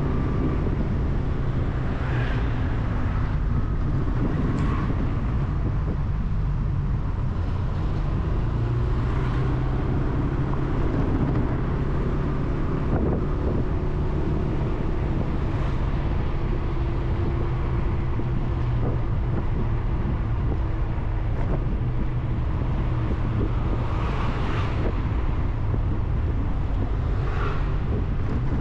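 Steady wind and road rumble from a camera riding along a road, with a low, steady hum underneath.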